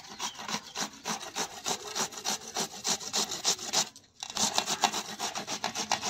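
A peeled cucumber is being grated on a flat metal hand grater in quick, rhythmic rasping strokes, about four a second. The strokes break off briefly about four seconds in, then resume.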